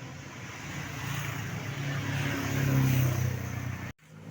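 A tour bus passing close by: engine hum and road noise swelling to a peak about three seconds in, then cut off suddenly.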